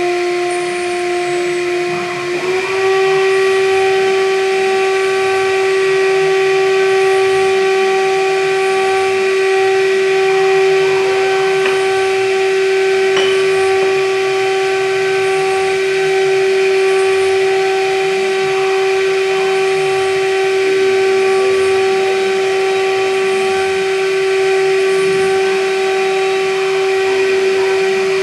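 Spindle of a MillStep PAX6050V2 CNC milling machine whining steadily while a small end mill cuts slots into a plastic plate, over a hiss from the nozzles aimed at the cutter. The pitch steps up slightly about two and a half seconds in and then holds.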